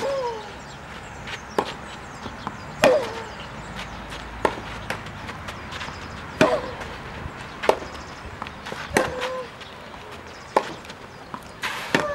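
A tennis rally on clay: racquets strike the ball about nine times, alternating between the near and far ends of the court. The loudest, nearest strikes come about every three seconds, and each is followed by a short falling grunt from the near player.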